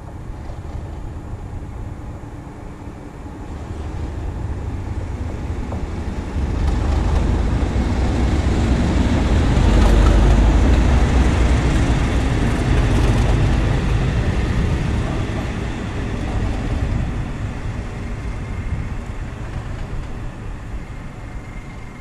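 A Class 37 diesel locomotive with its English Electric V12 engine passes with a ballast regulator coupled. The deep engine rumble and the noise of wheels on rail build up, are loudest about ten seconds in as it goes by, and then fade away.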